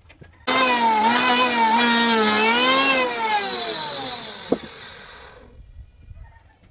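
An electric power tool's motor starts suddenly and runs with a wavering pitch for about two and a half seconds, then its pitch falls and fades as it winds down. A single sharp knock comes about four and a half seconds in.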